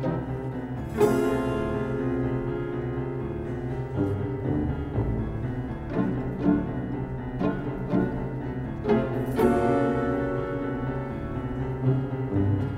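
Slow instrumental background music with held low notes and sustained chords. Two heavy struck chords stand out as the loudest moments, about a second in and again about nine seconds in.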